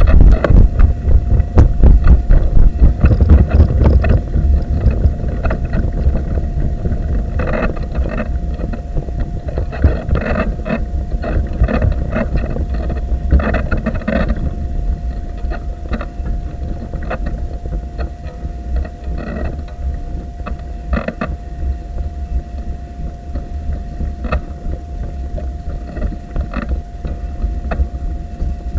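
Wheelchair rolling over paving: a low rumble with frequent knocks and rattles from bumps in the surface, plus wind on the microphone and a faint steady whine. It is loudest in the first few seconds.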